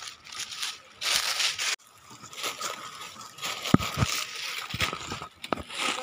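Footsteps crunching and rustling through dry fallen leaves on a stony path, with a few short low thuds in the second half.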